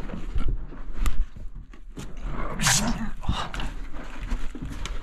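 A man breathing hard as he squeezes and crawls through a very narrow tunnel opening, with clothes and hands scraping on soil and rock and a couple of sharp knocks from handling the camera.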